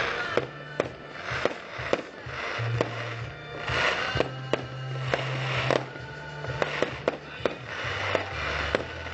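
Fireworks bursting overhead: sharp bangs about twice a second mixed with crackling from the shells, over music with a bass line playing throughout.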